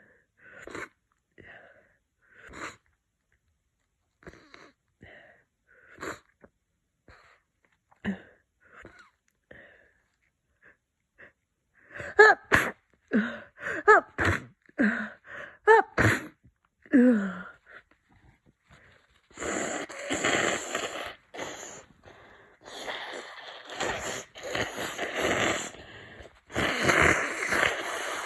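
A person with a congested head cold: short sniffs and catches of breath, then a quick run of loud, congested sneezes about twelve seconds in. Long, noisy rushes of breath through the blocked nose follow near the end.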